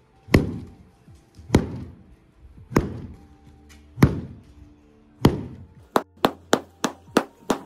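Wooden stick beating a quilted mattress on a rope cot to knock the dust out: five heavy whacks about a second apart, then quicker, lighter blows at about four a second over the last two seconds.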